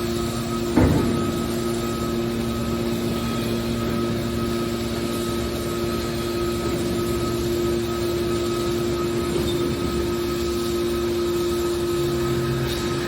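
Hydraulic scrap-metal baler running: a steady hum from its motor and pump, with one sharp knock about a second in.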